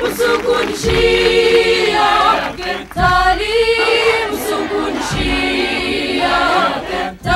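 A crowd of young people singing together in chorus without instruments, in long held phrases.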